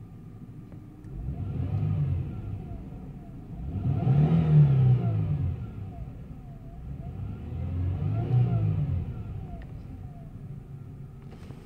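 A 2000 Toyota Solara's 3.0-litre V6 (1MZ-FE), heard from inside the cabin, idling in Park and revved three times. Each rev rises and falls back to idle over about two seconds, and the middle one is the highest and loudest.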